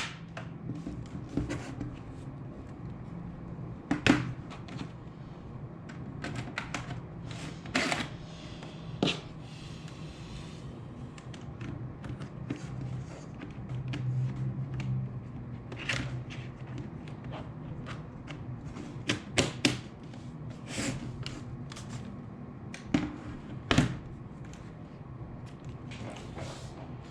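Scattered clicks, taps and knocks of small plastic parts and tools being handled while working on a laptop, over a steady low hum. There is a short rustle about nine seconds in.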